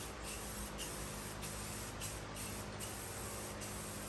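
Aerosol spray paint can spraying with a steady hiss, with a few brief dips as the spray is let off and resumed.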